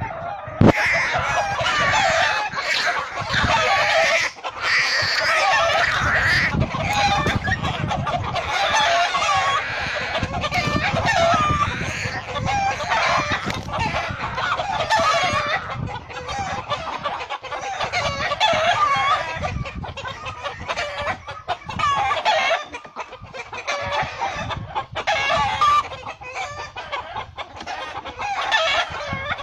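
Chicken squawking and clucking loudly and almost without pause, agitated calls while it fights an owl.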